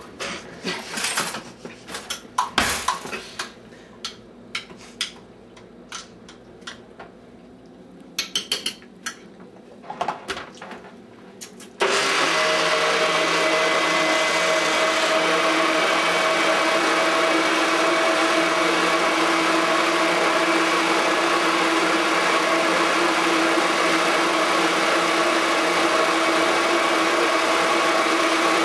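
Kitchen utensils and dishes clink and knock, then a little under halfway through an electric blender switches on suddenly and runs steadily.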